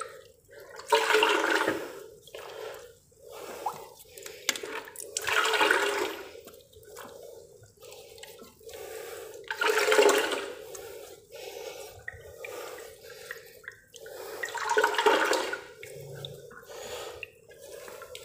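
Water from a leaking pressurised pipe joint spraying and splashing in a flooded hole, in four loud splashing surges a few seconds apart. The leak is at a failed elbow joint.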